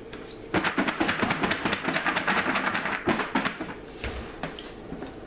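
Chex rice cereal coated in chocolate and powdered sugar rattling inside a lidded bowl as it is shaken hard to coat the pieces in sugar. A dense, rapid rattle starts about half a second in and dies down after about three seconds into a few scattered knocks.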